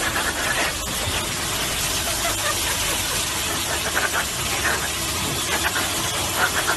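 Steady rushing air from a dog-wash station's blower dryer blowing on a pug's coat. A few brief higher-pitched sounds come through it near the middle and near the end.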